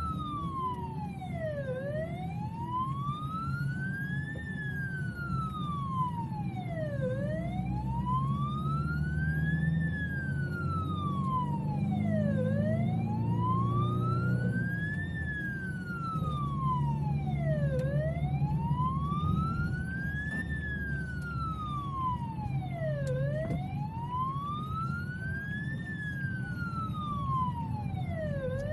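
Emergency vehicle siren in a slow wail, its pitch rising and falling about once every five seconds, heard from inside the vehicle's cabin over steady engine and road noise.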